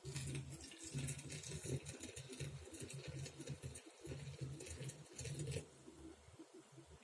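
Hot water being poured from a kettle into a teapot with a tea filter, a steady splashing pour that stops abruptly about five and a half seconds in.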